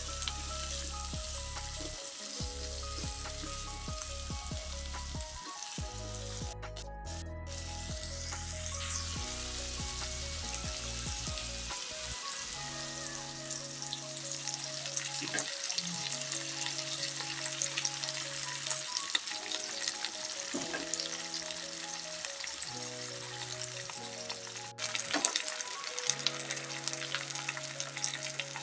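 Food sizzling steadily in hot oil in a pan as it is stir-fried, with a few sharp clicks near the end, over background music.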